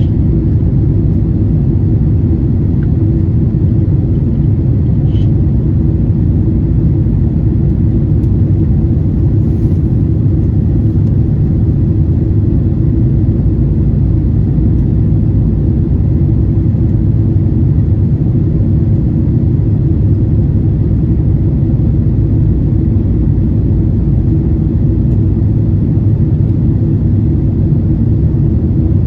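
Jet airliner's engines and rushing air heard from inside the passenger cabin during takeoff: a loud, steady low rumble, with a couple of faint clicks.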